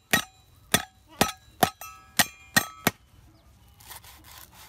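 Cleaver chopping lemongrass on a wooden chopping board: about seven sharp chops in the first three seconds, the blade ringing briefly after each, then softer scraping near the end.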